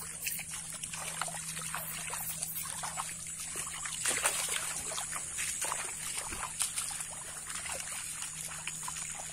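Water trickling and splashing irregularly as hands work through shallow water and a fishing net, searching for fish.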